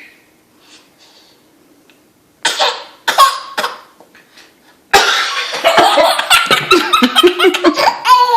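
Three short coughs about two and a half seconds in, then a baby laughing hysterically in a long run of rapid bursts, set off by the cough.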